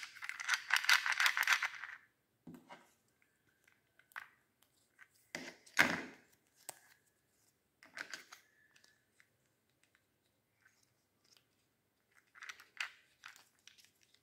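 Small plastic parts of a mini handheld fan being handled as its propeller is pulled off and a new one fitted: a rattling clatter in the first two seconds, then scattered plastic clicks and scrapes, the loudest about six seconds in. The fan's motor is not running.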